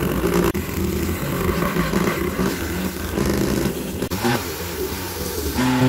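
Small salvaged printer DC motor of a homemade mini lathe running steadily, spinning a sponge-rubber fishing-float blank while sandpaper is held against it, giving a steady motor whir with the scratchy hiss of sanding.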